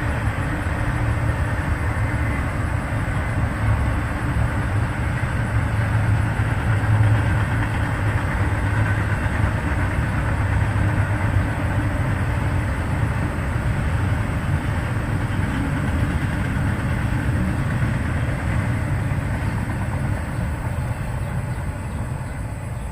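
Freight train rolling past, a steady rumble of its cars on the rails that eases slightly near the end.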